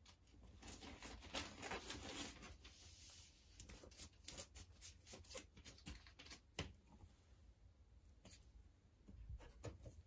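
Faint rustling and crinkling of a vinyl record jacket being worked into a plastic protective sleeve, busiest in the first few seconds, then scattered light taps and clicks.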